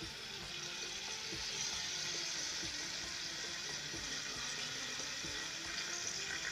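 Lamb trotters and sliced onions sizzling steadily in hot oil in a steel cooking pot.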